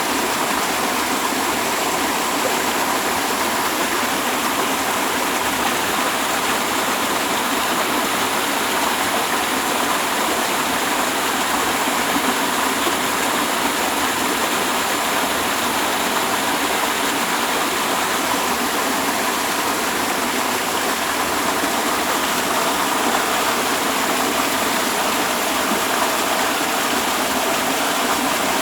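Steady rush of a waterfall, falling water as an even, unbroken roar.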